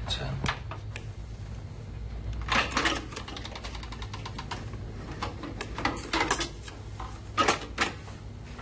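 Irregular clicks and taps over a steady low hum, with louder clusters about two and a half and seven and a half seconds in.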